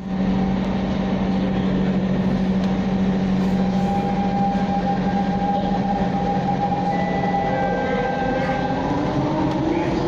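SMRT C651 metro train running, heard from inside the car: a steady rumble with the whine of the traction motors. One steady tone fades out about two-thirds of the way through, and a tone rises in pitch near the end.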